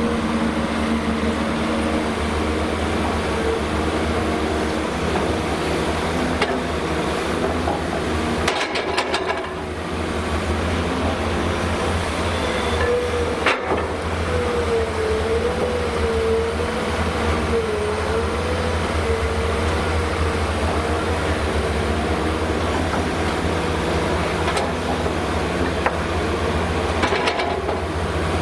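Hyundai Robex 300LC-9S crawler excavator working while loading articulated dump trucks: a steady, heavy diesel hum with a whine that wavers up and down for several seconds in the middle. A few sharp knocks fall about nine seconds in, near the middle and near the end.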